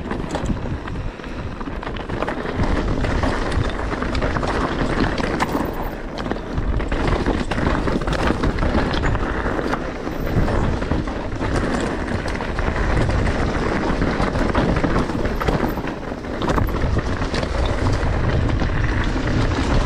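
Specialized Turbo Levo electric mountain bike descending a rough, rocky trail: a constant clatter of tyres, chain and frame over stones, with many short knocks. Wind buffets the microphone.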